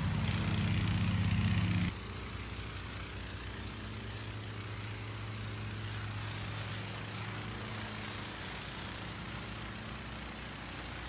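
Electric pump of a battery-powered Ryobi backpack sprayer humming steadily while its wand sprays liquid fertilizer. The hum is louder for the first couple of seconds, then drops to a quieter steady level.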